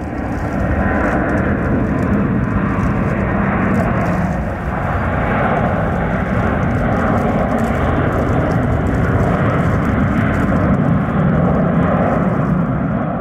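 Jet engines of a heavy freighter airliner running loud and steady at high power.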